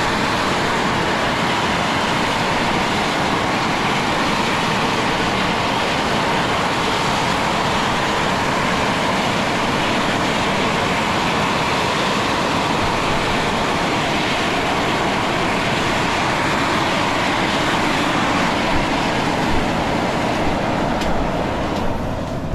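Large geothermal fumarole venting steam and gas very strongly: a loud, steady hiss like a factory boiler.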